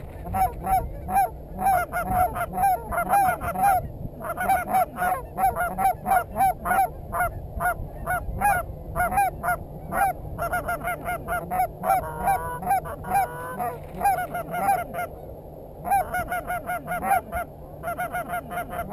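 Goose honks and clucks in rapid, continuous runs of several calls a second, with brief pauses about four seconds in and about fifteen seconds in.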